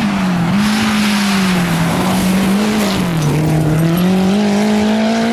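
Lancia Delta rally car's turbocharged four-cylinder engine working hard on a gravel stage. The engine pitch dips and rises as the throttle comes off and on, then climbs steadily over the last two seconds, over a constant hiss of tyres on loose gravel.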